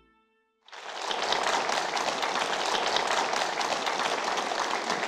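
Soft instrumental music fading out, then, under a second in, a studio audience breaks into steady applause.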